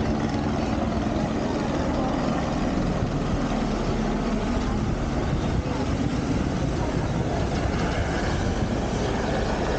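A helicopter flying past low over the sea, a steady engine-and-rotor drone whose low tones are clearest in the first few seconds and then merge into a wash of noise.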